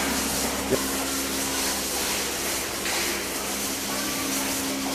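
Milking-parlour machinery running with the milking clusters on the cows: a steady hiss of air and vacuum over a low steady hum.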